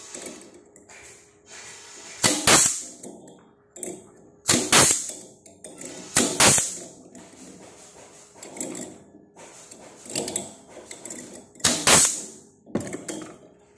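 Spring-clip stapler gun firing as it clamps metal clips around zigzag sofa springs and their cross wire. There are four loud sharp shots, three of them within about four seconds and the last near the end, each trailing off briefly, with quieter clicks and wire rattles between.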